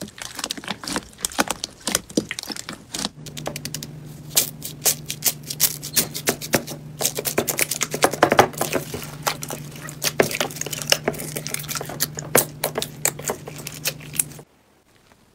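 Slime being pressed and squished by hand, making dense, irregular crackling and popping clicks. A steady low hum sits underneath from about three seconds in, and the sound drops off abruptly just before the end.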